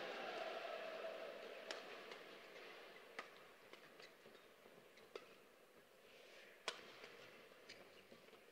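Crowd murmur dying away, then sharp racket strikes on a shuttlecock in a rally, roughly one every one and a half to two seconds, with fainter ticks between them.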